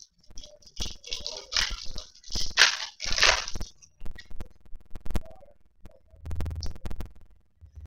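Hands flipping through a stack of hockey trading cards: the cards slide and rustle against one another for a few seconds, with short clicks and taps as the cards are handled over the table.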